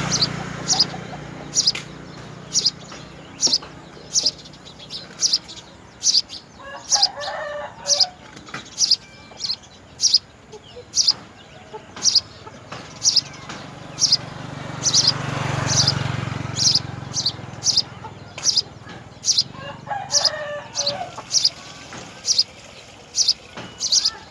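A sparrow chirping over and over, short high chirps about twice a second. A low rumble swells and fades about two-thirds of the way in.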